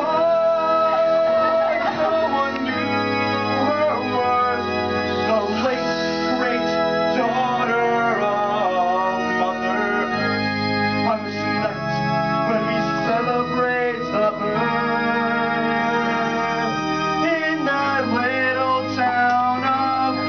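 Live stage musical number: a keyboard with an organ sound playing held chords, with voices singing over it.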